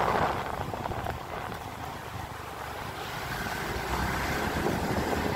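Wind buffeting the microphone of a moving motorcycle, over a steady low rumble of engine and road.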